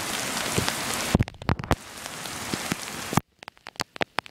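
Hard rain falling, a steady hiss peppered with sharp clicks of individual drops. About a second in the hiss gets quieter and single drop clicks stand out; about three seconds in the hiss cuts off suddenly, leaving scattered clicks.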